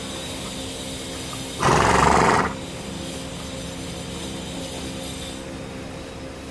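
A horse snorts once, a short rough blast of air through its nostrils about two seconds in, close to the microphone, over a steady background hum.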